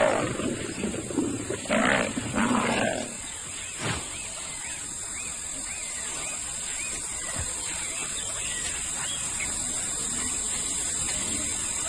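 Male lions snarling and growling in a dominance clash, loud for about the first three seconds and then dying away. A steady high hiss and a small chirp repeating about twice a second are left behind.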